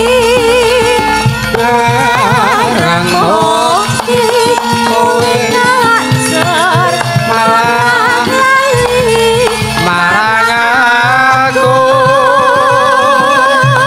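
Javanese sinden (female singer) singing with a wide, wavering vibrato over a gamelan ensemble, with steady metallophone tones and hand-drum (kendang) strokes underneath.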